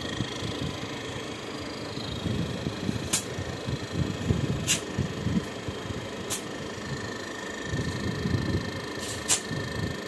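Inverter refrigerator's hermetic compressor running steadily on the bench, driven by its repaired inverter board and working normally. A few sharp ticks sound at scattered moments.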